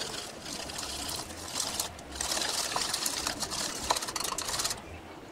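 Wire whisk beating wet gram-flour (besan) batter in a bowl: a rapid, wet scraping and clicking of the wires against the bowl and through the batter. It breaks off briefly about two seconds in and stops shortly before the end.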